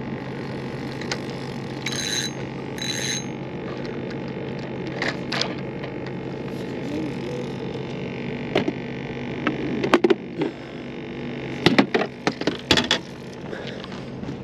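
Two short, high ringing chimes less than a second apart about two seconds in, over a steady low hum. Later, a run of sharp knocks and rattles as gear and the bait bucket are handled in an aluminium boat; the loudest come around ten and twelve seconds in.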